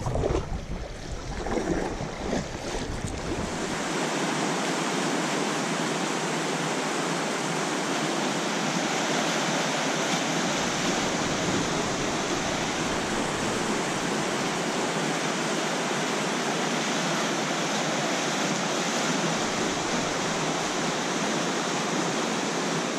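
Wind buffeting the microphone while paddling for the first few seconds, then the steady rush of whitewater pouring through a river rapid.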